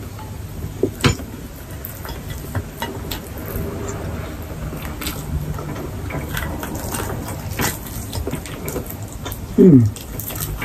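Close-up mouth sounds of a person eating roast chicken by hand: chewing and lip-smacking, with scattered sharp clicks and crunches. Near the end comes a short vocal sound that falls in pitch.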